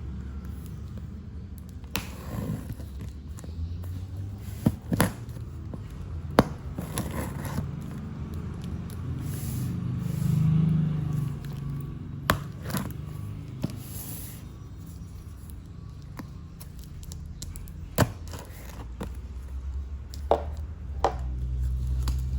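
Hands handling and opening a laptop's packaging: scattered sharp knocks and clicks and some scraping, over a low steady rumble.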